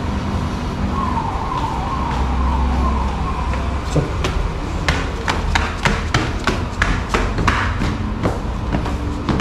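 A short siren-like tone falling in pitch over and over, several times a second, for about two seconds. Then footsteps on marble stairs as people climb: sharp knocks about two a second.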